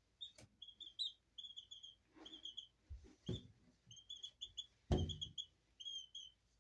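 Baby chick peeping in series of short, high cheeps, with a few knocks, the loudest about five seconds in.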